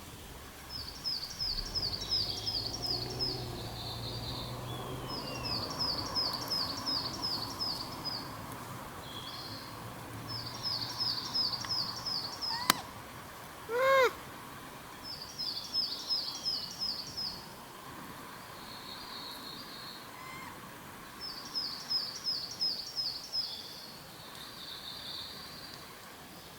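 A Japanese macaque gives one loud coo call about fourteen seconds in, a short tone that rises and falls. A small bird repeats a quick run of about eight high chirps every few seconds, and there is one sharp click shortly before the monkey's call.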